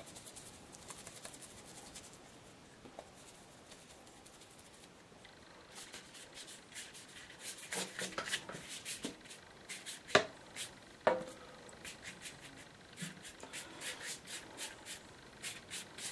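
A watercolour brush working paint, first faint rubbing in the palette tray, then quick scratchy strokes across wet paper from about five seconds in. Two sharper knocks come a little after ten seconds.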